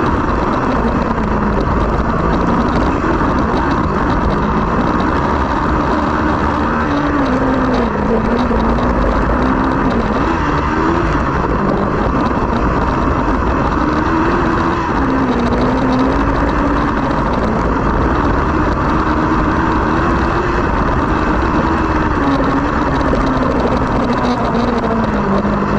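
Race buggy's engine heard from inside the cockpit at full racing effort, the revs climbing and dropping again and again with throttle and gear changes. Rumble and wind noise run underneath.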